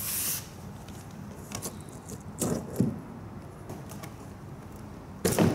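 Hands working a fuel petcock off a plastic fuel tank: scattered light rubs, clicks and scrapes of metal and plastic, with a louder clunk near the end.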